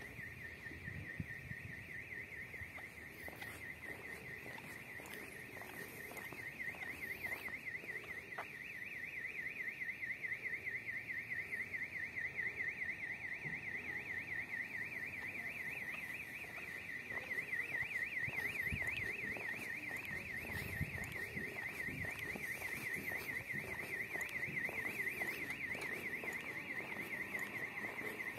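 Electronic alarm siren warbling rapidly up and down around one high pitch without a break, growing louder about eight seconds in.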